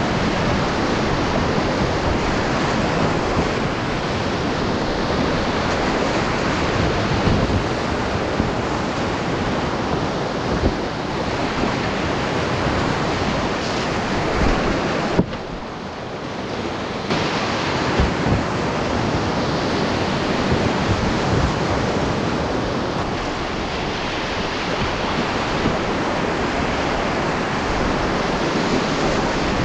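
Whitewater rapids rushing loudly and steadily around a boat, a dense roar of churning water. About halfway through, the sound turns muffled for a second or two.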